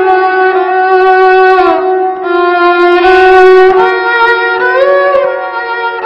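Instrumental music with a melody on a bowed string instrument, playing long held notes that slide from one pitch to the next.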